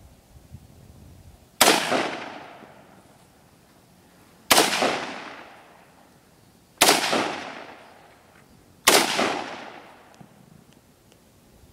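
AR-15 rifle fired four times in slow, deliberate semi-automatic shots a couple of seconds apart, each crack followed by a long fading echo.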